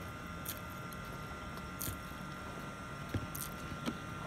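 A person slurping and chewing noodles: about three short, wet mouth sounds over a steady low background noise.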